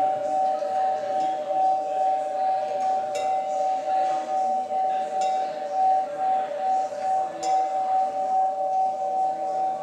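Glass carafes ringing in two steady, pure tones that pulse about twice a second, with a few light glass clinks.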